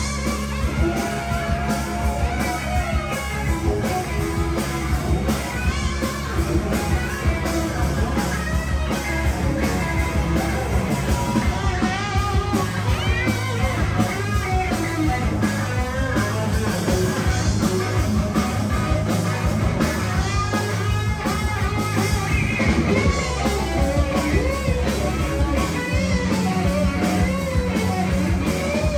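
Rock band playing: guitar over a steady bass line, with singing.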